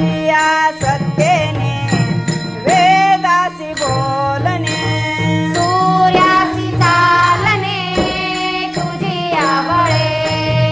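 Marathi abhang bhajan music: an ornamented melody line over small hand cymbals struck in a steady, quick rhythm.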